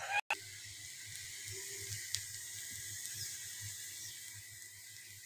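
Aloo paratha frying in oil on a tawa: a faint, steady sizzle and hiss. A brief louder noise at the very start cuts off abruptly about a quarter second in.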